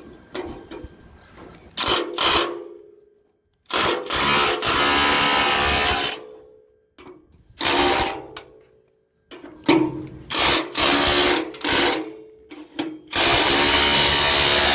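DeWalt hammer drill run in repeated trigger bursts, some short, some held for a couple of seconds, hammering at a welded-on piece to break it loose; the piece does not come free.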